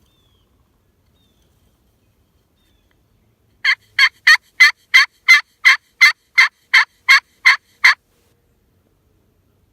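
A turkey call run as a series of thirteen evenly spaced yelps, about three a second, imitating a hen turkey to draw in a gobbler. The yelps start about a third of the way in and last about four seconds.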